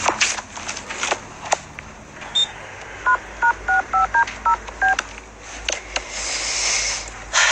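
Cordless telephone being dialled: a single short high beep, then seven touch-tone key beeps in quick succession, about three a second. A few light clicks of the handset being handled come before.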